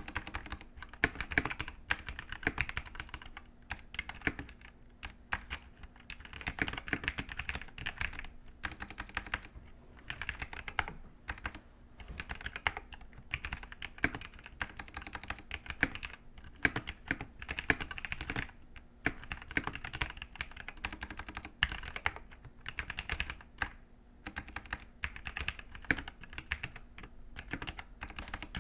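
Typing on a Dierya T83 gasket-mounted mechanical keyboard in stock form, with red linear switches under double-shot pudding keycaps: a steady patter of keystrokes in runs with brief pauses between them.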